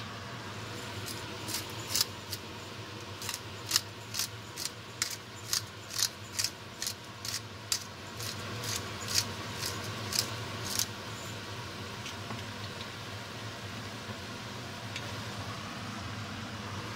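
Pepper mill being ground over a pot of meat: a run of sharp clicks, about two a second, that stops about eleven seconds in, over a steady low hum.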